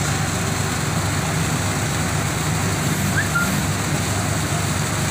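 A steady low engine rumble under a constant hiss, with one brief high chirp a little after three seconds in.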